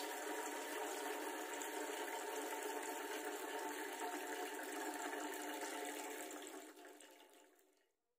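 Thin streams of water falling from a plastic cup punched with holes into a basin of water, a steady splashing patter made as a homemade rain sound. It fades out near the end as the cup runs dry.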